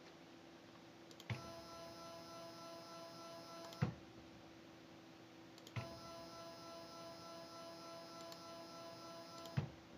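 Stepper motors of a CNC machine run at a steady speed twice, each move a steady whine that starts and stops with a click, over a constant faint hum.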